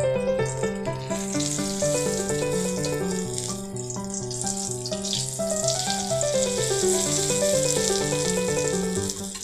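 Oil sizzling as an eggplant omelette fries in a wok, a steady hiss that comes in about a second in, under background music with a repeating bass line.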